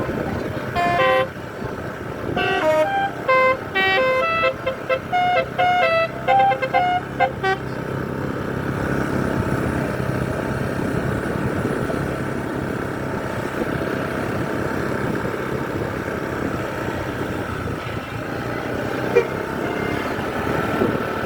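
Indonesian bus telolet horn playing a quick melody of short notes at changing pitches, from about a second in until about seven seconds in. After that the bus engine and road noise run steadily.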